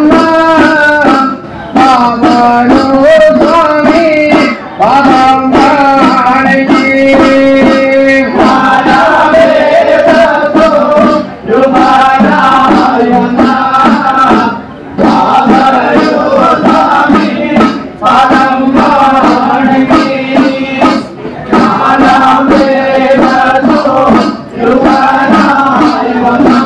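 Male voices singing an Ayyappan pattu, a devotional song to Ayyappa, in phrases of a few seconds with short breaks between them.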